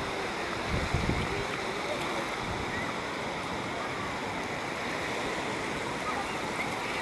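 Steady wash of small ocean waves breaking along the shore, with faint distant voices of people on the beach.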